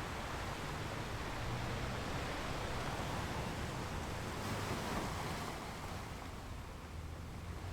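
Ocean surf washing onto a beach: a steady wash of waves that swells to a peak about halfway through, then eases off as the wave recedes.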